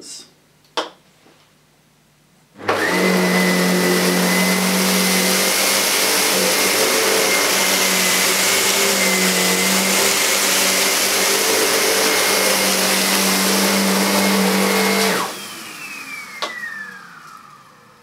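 Sebo K3 Premium Eco cylinder vacuum cleaner, with its ET-1 power head, switched on about two and a half seconds in and running steadily while passing over carpet. It is switched off about fifteen seconds in, and the motor whines down in falling pitch as it slows.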